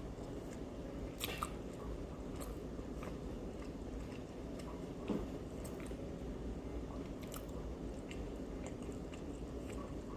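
Close-up chewing and biting of fried egg rolls, with a few sharp crunches of the wrapper standing out, about a second in and again about five seconds in.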